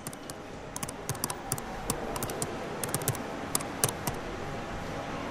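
Fingers typing on a laptop keyboard: quick, irregular key clicks over a steady background noise.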